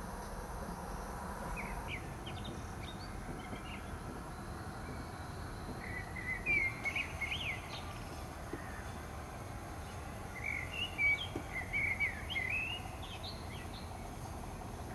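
Songbird chirping in three short bouts of quick high notes, over a steady low background rumble.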